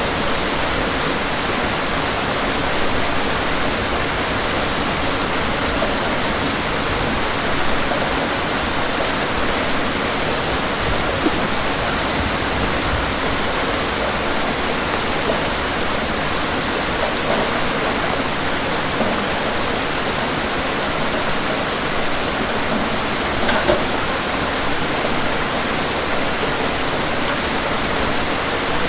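Rainstorm: steady rain making an even hiss, with a few faint drop ticks here and there.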